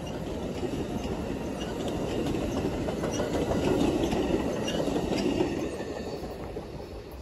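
The last cars of an Amtrak passenger train rolling past on the rails, a steady rumble of wheels on track with light clicking. It swells as the baggage car at the rear goes by, then fades away after about six seconds once the train has passed.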